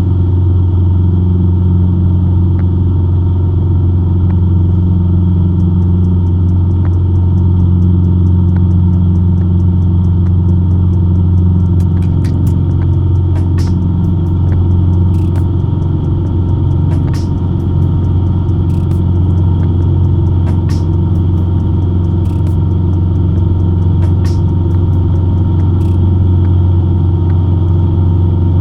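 Cessna 150's four-cylinder Continental O-200 engine and propeller droning steadily in flight, at power on the climb-out after takeoff.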